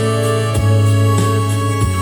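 Instrumental rock music: long held melody notes over a bass line, guitar and a steady beat.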